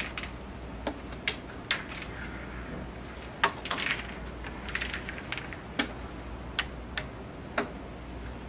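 Scattered sharp clicks of wooden crokinole discs knocking together as they are handled, about eight over several seconds.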